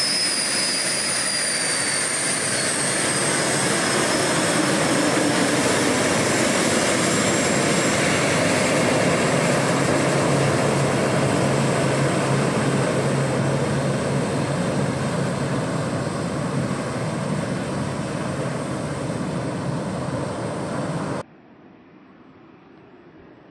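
Messerschmitt Me 262's twin jet engines running as it taxis: a loud jet whine whose high whistling tones fall in pitch over the first few seconds, then a steady loud rush. The sound cuts off abruptly near the end, leaving only faint hiss.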